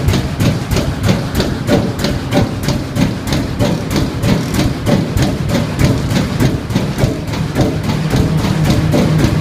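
Bolinder WA 40 marine engine of a tugboat running steadily, with an even, rhythmic knock of about four to five beats a second over a low rumble.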